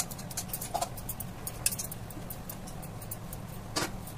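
Light clicks and taps of button mushrooms and fingers against a steel bowl as the mushrooms are tossed by hand in a spice paste, over a steady low hum. The sharpest tap comes near the end.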